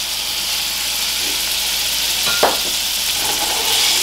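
Diced raw chicken sizzling as it lands in hot olive oil in a nonstick frying pan, the hiss building slightly as more goes in and is stirred. A single sharp knock about two and a half seconds in.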